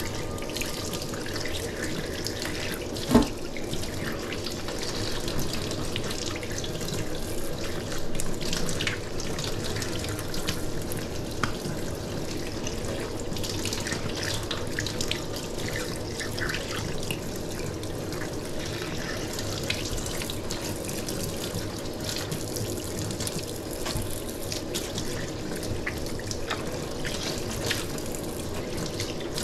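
Tap water running steadily into a sink, with scattered small splashes and clicks and one sharp knock about three seconds in.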